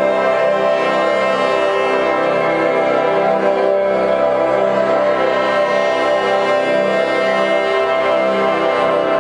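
Orchestral music dominated by brass: a loud, dense chord of many notes held and sustained without a break.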